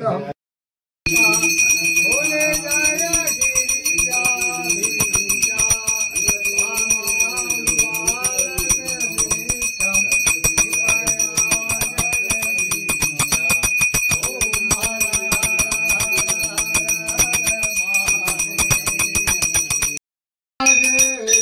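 Temple bells rung rapidly and without pause, a steady ringing with many strikes a second, under voices singing a devotional song. It starts abruptly about a second in and cuts off just before the end.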